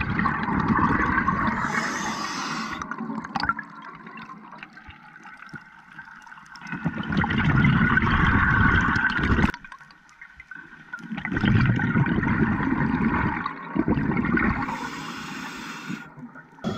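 A scuba diver's regulator breathing underwater: exhaled bubbles rush and gurgle past the microphone in long bursts a few seconds apart, with a short hiss of inhalation between them.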